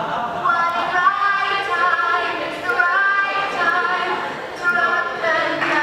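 Voices singing together, holding notes that step and glide in pitch.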